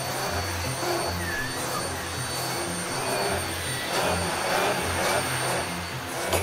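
Canister vacuum cleaner running steadily, its floor nozzle working over a shaggy rug.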